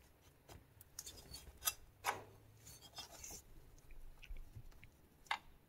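Faint handling noises of a Stihl MS260 chainsaw's cylinder being worked up off its piston: scattered light clicks, small knocks and rubbing, the sharpest about one and a half and two seconds in, with one more click near the end.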